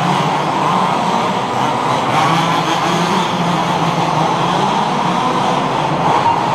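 Several 1/5-scale HPI Baja radio-controlled buggies racing, their small two-stroke petrol engines buzzing together in a steady mixed drone.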